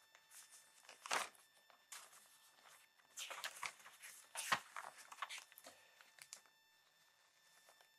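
Paper rustling and crinkling as loose script sheets and a small book are leafed through, in a few short spells: once about a second in, then several between three and five and a half seconds in.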